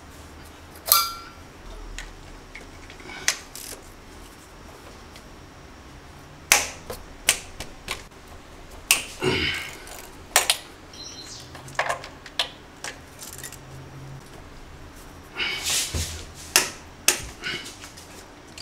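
Hand tools on engine parts: a socket ratchet and wrenches giving irregular sharp metallic clicks and clinks as bolts over the fuel rail are worked loose. The clicks are busiest about nine seconds in and again near the end.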